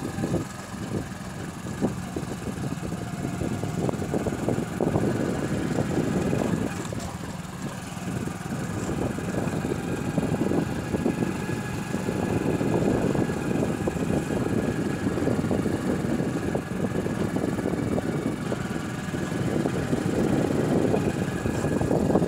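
Motor vehicle travelling along a road, its engine running steadily under a rough rumble that swells and eases.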